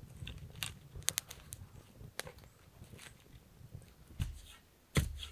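Small campfire of pine branches burning, with a low rumble under scattered sharp crackles and pops. A heavy thud comes near the end.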